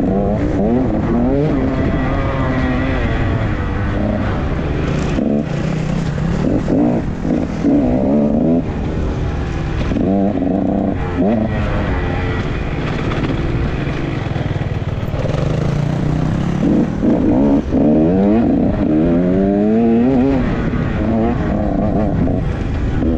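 Enduro dirt bike engine heard close up from the rider's own bike, revving up and dropping back again and again as it is ridden hard over the track.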